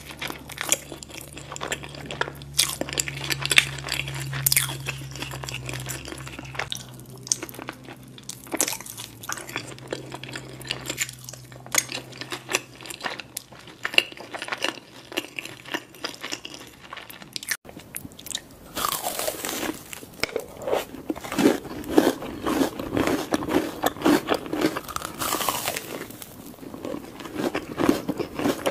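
Close-miked eating: crunchy bites and chewing of sauce-coated fried chicken. About two thirds of the way in it changes to biting and chewing a cheese-filled Korean corn dog with a crunchy coating.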